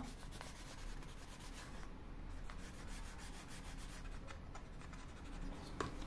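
Faint scratchy rubbing of a felt marker tip drawn back and forth along the edge of a thin wooden panel as it is coloured in.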